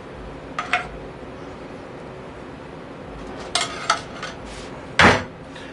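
Kitchenware being handled: a few short clinks and knocks, the loudest about five seconds in, over a steady low hum.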